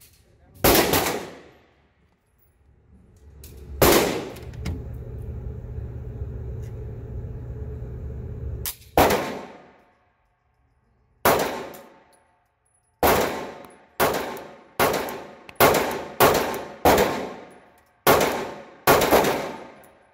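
Glock 43 9mm subcompact pistol with a ported compensator fired in an indoor range, each shot ringing off the walls. About a dozen shots: four spaced a few seconds apart, with a steady low hum between the second and third, then a quick string of about eight shots less than a second apart.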